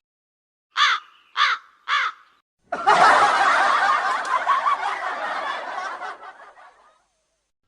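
Comedy sound effect: three short, squeaky calls that rise and fall, about half a second apart, then a burst of laughter that fades away over about four seconds.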